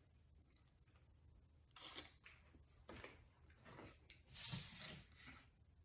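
Near silence, broken by a few faint, short noises about 2 seconds in and again between 3 and 5 seconds in.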